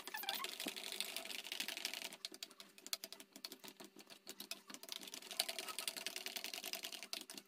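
A metal utensil beats mashed potatoes in a stainless steel pot, a rapid run of clicks and scrapes against the pot's sides. This is the long, steady mixing that works the lumps out of the mash.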